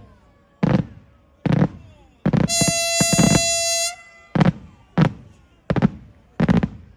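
Daytime fireworks shells bursting in a rapid series: about nine sharp bangs, each with an echoing tail. A steady high-pitched horn-like tone sounds for about a second and a half near the middle.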